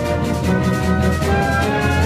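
Orchestral music: held notes over a steady low bass, the melody moving to a new note about every half second.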